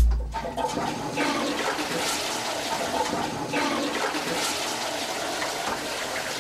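Squat toilet flushing: a sudden low thump as it starts, then water from the cistern rushing steadily through the bowl.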